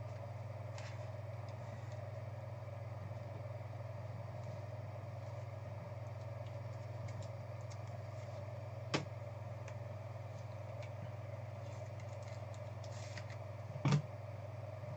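Steady low electrical hum of a small room, with the quiet handling of trading cards and rigid plastic card holders on a table: one sharp click about nine seconds in and a short knock near the end.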